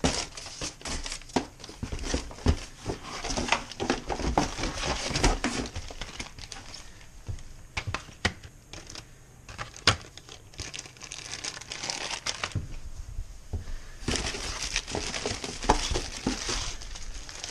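Plastic and card packaging crinkling and rustling as it is handled and unpacked from a cardboard box, with scattered light knocks and taps as items are picked up and set down.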